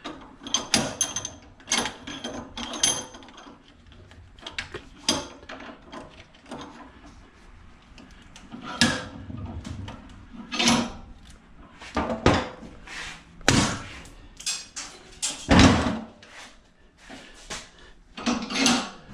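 Irregular knocks and clatters of scrap parts and hand tools being handled and pried apart on a workbench. There are a dozen or so separate hits, the first few ringing briefly, and the loudest comes about fifteen seconds in.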